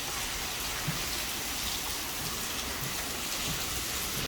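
Steady rain of a tropical storm falling, an even hiss with no breaks.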